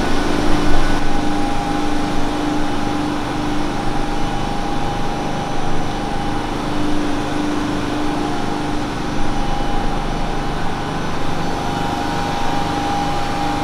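Fortus industrial FDM 3D printer running mid-print: a steady fan noise with humming motor tones that cut out and come back every few seconds.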